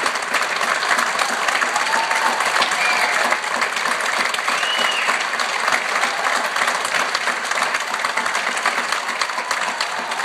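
Theatre audience applauding steadily, a dense crowd of hands clapping.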